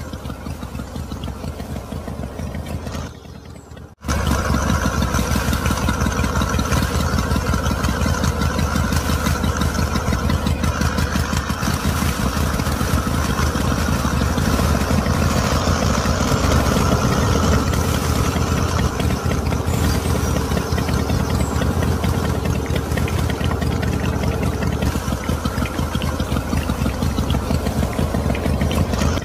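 Motor of a miniature model engine running steadily and driving a small model machine by belt, with a fast, even rattle and a low hum. It gets much louder about four seconds in. Midway, seeds pour into the machine's hopper.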